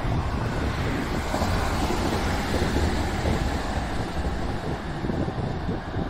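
Wind buffeting the microphone over the running noise of a passing JR West 227 series electric commuter train.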